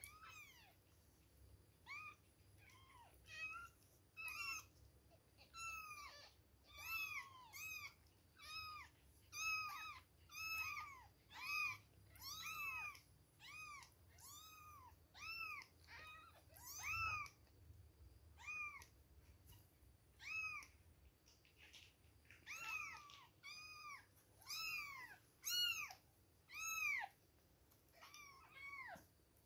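A litter of two-week-old kittens mewing over and over: thin, high cries, each rising and then falling in pitch, about one a second with a few short pauses.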